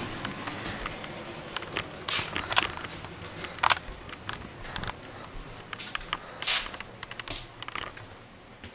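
Irregular clicks and knocks from a handheld camera being handled while its carrier walks, mixed with footsteps. The loudest knocks come about two, four and six and a half seconds in.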